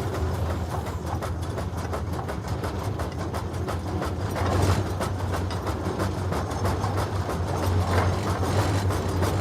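Case 150 hp steam traction engine running while being driven, a fast, even clatter of its machinery over a steady low hum.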